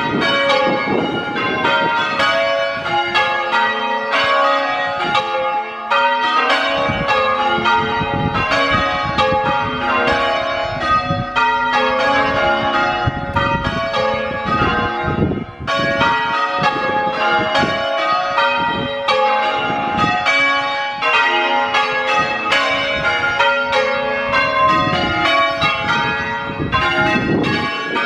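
Church bells being rung in changes by a band of ringers at practice: a continuous run of overlapping bell strokes, one bell after another.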